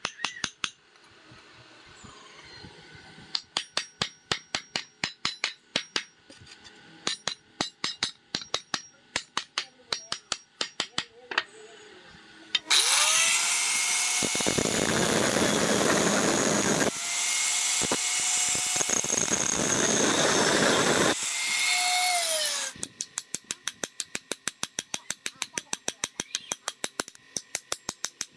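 Hammer tapping metal pins through wooden knife-handle scales, quick light strikes several times a second. About halfway through, an angle grinder with a cutting disc spins up with a rising whine and cuts off the protruding pins. It runs loud for about ten seconds, dipping once, then winds down. Fast, even hammer taps follow, about five a second, peening the pins.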